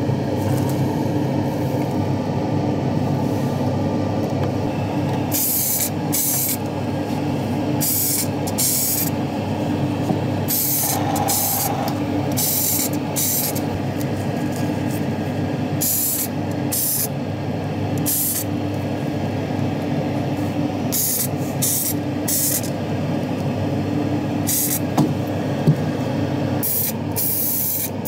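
Short, repeated hisses of a paint sprayer applying epoxy primer to a small diecast body, starting about five seconds in and coming every second or two. Under them runs a steady low hum.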